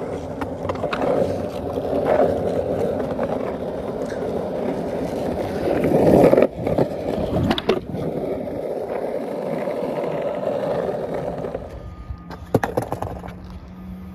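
Skateboard wheels rolling on smooth pavement, a steady rumble that swells louder about six seconds in and stops about twelve seconds in, followed by a few sharp knocks.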